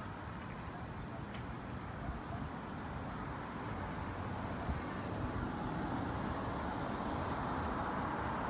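Outdoor background: a steady rushing noise that grows slowly louder, with a few short high chirps scattered through it, about one every second or two.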